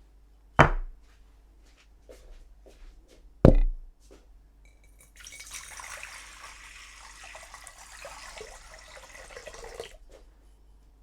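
Two sharp knocks about three seconds apart, then water running steadily for about five seconds before cutting off.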